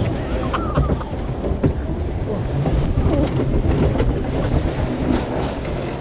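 Log flume boat going over the crest and running down the chute: a steady rumble and clatter of the boat on its track, with water spraying over the boat near the end.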